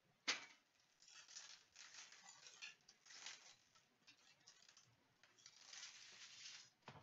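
Foil trading-card pack wrappers crinkling and tearing as hockey card packs are opened by hand, in several short rustling spells. A sharp click a quarter second in and another near the end.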